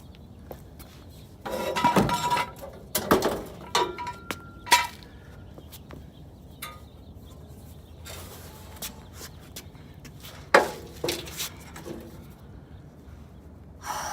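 Metal clanks, knocks and ringing clinks, bunched in a cluster about two seconds in and another about ten seconds later: the original exhaust of a 1992 Acura NSX being worked loose and taken off the car.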